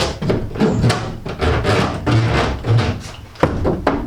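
Quick, irregular series of knocks on the sheet-metal panels of an Iveco Daily van's cargo area, lined with self-adhesive sound-deadening mat, testing how much the mat has damped the metal.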